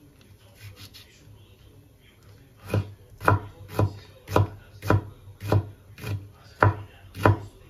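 Chef's knife chopping a jalapeño pepper on a cutting board: a couple of quiet seconds of light slicing, then about nine sharp chops at a steady pace of nearly two a second.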